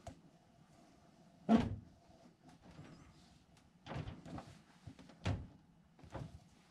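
A few separate dull knocks and thumps, the loudest about a second and a half in, as a rope is handled and tied around a pole.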